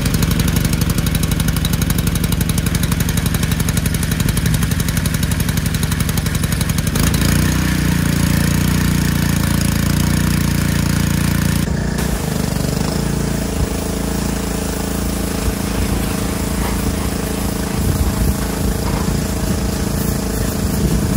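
Gas pressure washer's small Honda engine running steadily, just after catching on a pull-start. Its note shifts about seven seconds in, and from about twelve seconds it runs less evenly.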